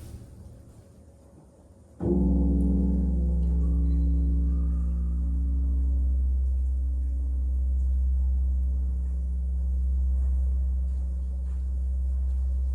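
A large bell struck once about two seconds in, followed by a long, deep hum that pulses slowly as it rings on.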